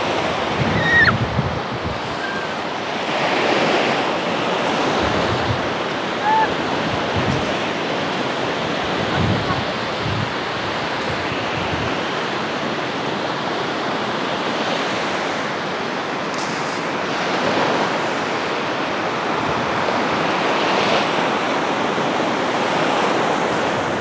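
Surf breaking steadily on a sandy beach, a continuous wash of waves that swells a little now and then. Wind buffets the microphone in low thumps.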